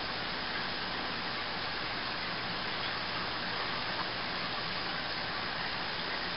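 Steady, even hiss of background noise with no distinct events or changes.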